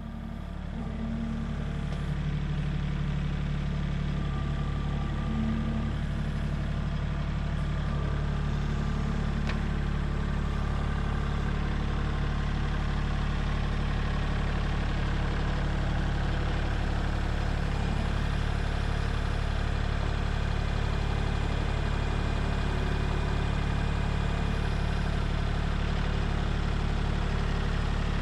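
An engine running steadily at idle, building up over the first couple of seconds and then holding an even level.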